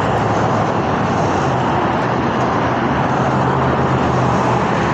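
Steady motor vehicle noise: an even rush with a low hum that holds for a few seconds in the middle.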